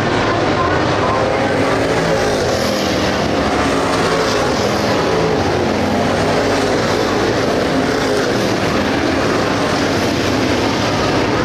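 A pack of dirt late model race cars, running 602 crate V8 engines, at racing speed. The engines make a steady, loud drone as cars pass close by the grandstand.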